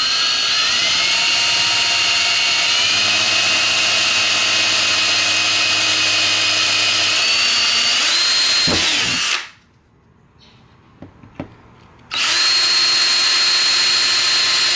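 Cordless drill boring a 5/32-inch bit through ABS plastic: a steady motor whine whose pitch shifts up and down in steps as the bit bites, winding down and stopping a little after nine seconds in. After a short pause with a few clicks it starts up again.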